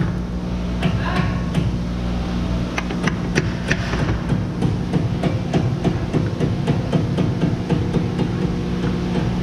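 Repeated light metal taps and clicks, a few a second, of a tool being worked against the old crankshaft front oil seal of a Honda V6 to break it loose and pry it out. A steady low hum runs underneath.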